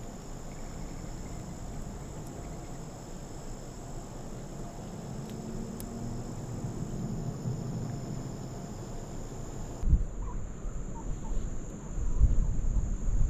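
Steady high-pitched insect chorus, a continuous trill held on two pitches. About ten seconds in the chorus drops away and low rumbling noise takes over, louder near the end.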